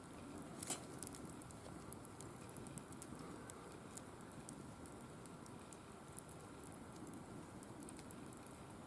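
Firewood burning in a wire-mesh fire pit: a steady low rush of flame with scattered crackles, and one louder pop just under a second in.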